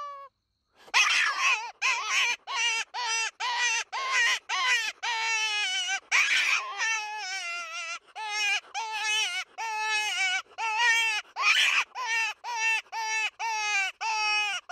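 Hand-held mouth-blown predator call sounded in a rapid series of short, wavering, cry-like notes, about two a second, each falling off in pitch at the end, imitating an animal in distress to draw in coyotes.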